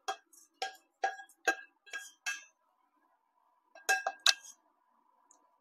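Stainless steel pan tapped about six times at an even pace with a wooden spatula as roasted urad dal is knocked out of it, each tap leaving a short metallic ring. About four seconds in, two clanks as the pan is set down on the gas stove's grate.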